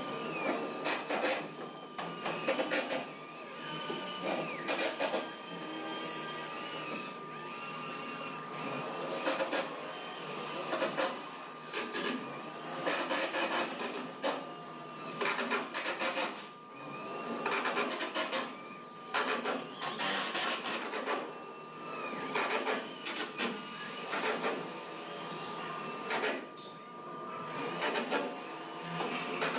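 Workshop assembly noise: a cordless drill running in short bursts as screws are driven, amid irregular knocks of timber and tools, over a steady high tone.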